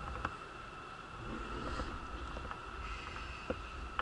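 Station platform ambience: a low steady rumble with a faint steady high whine and a few light clicks.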